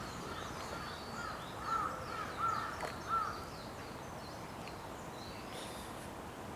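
A crow cawing in a run of short calls, loudest about two to three seconds in, with fainter chirps of smaller birds above it, then only faint outdoor background.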